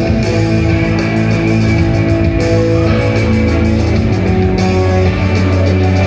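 A live band playing loud instrumental rock on electric guitar and keyboards, with sustained notes over a steady deep bass.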